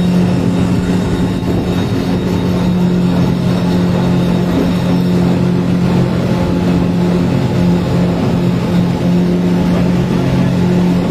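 Suzuki 100 hp outboard motor running steadily under way on a sea trial, holding one constant engine note.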